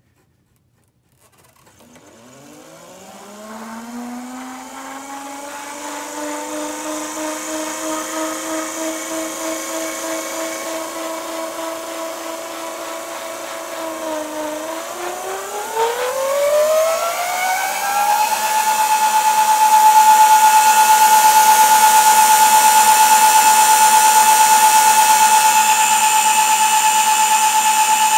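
Charly electric scooter's DC drive motor spinning up under power with a whine that rises and holds steady. About halfway through it speeds up again to a higher, louder steady whine.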